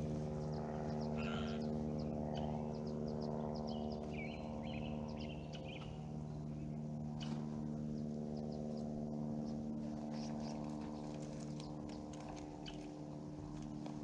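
A steady low hum at one unchanging pitch, with short bird chirps scattered over it.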